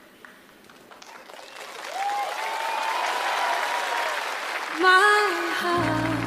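Audience applause and cheering swell up about two seconds in, with scattered whoops. Near the end a woman's sung note and a low sustained chord from the band come in.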